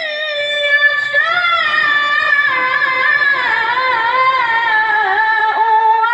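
Melodic Quran recitation (tilawah): a solo reciter holds one long, unbroken melismatic phrase with ornamented, wavering pitch. It rises about a second in, then sinks gradually lower.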